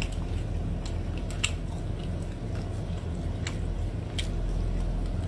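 Close-up eating sounds as spicy crayfish tails are peeled and chewed: a few scattered small wet clicks and mouth smacks over a steady low hum.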